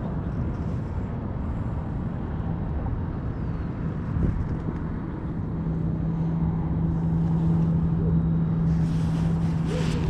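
A motor running steadily with a low rumble; a steady low hum sets in about halfway through and grows slightly louder.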